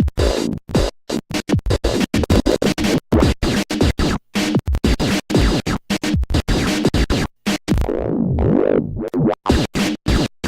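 Electronic music chopped into rapid stuttering fragments with abrupt cut-offs and a scratch-like effect, with a falling swoop near the end.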